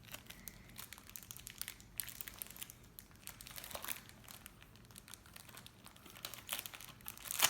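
Plastic packaging of a speed cube crinkling in irregular crackles as it is unwrapped and handled, with the loudest crinkle near the end.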